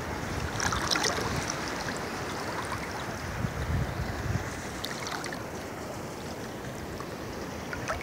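Calm sea water lapping and sloshing around a person wading in it, with small scattered splashes and a steady wash of surf.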